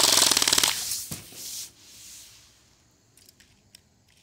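Crosman full-auto CO2 BB rifle firing one long burst of .177 BBs, a very fast rattle of shots that stops under a second in and trails off over the next second. A few faint ticks follow near the end.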